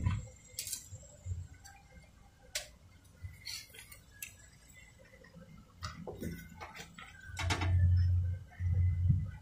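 Handling noise: scattered small clicks and taps, then low rubbing bumps on the microphone, loudest about three-quarters of the way in.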